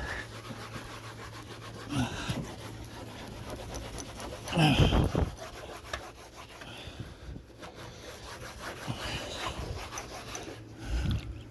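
A towel scrubbing a refrigerator door: a steady, rough rubbing. A few short, louder sounds break in over it, the loudest about halfway through.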